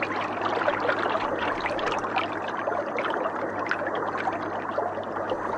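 Water trickling and bubbling steadily, a dense patter of small clicks.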